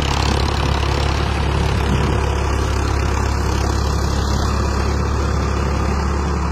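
Diesel engine of a 55 hp Farmtrac 60 Powermaxx tractor running steadily under load while it pulls a disc harrow through soil.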